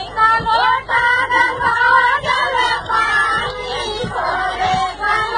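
High-pitched women's voices singing a lively song over a steady thumping beat.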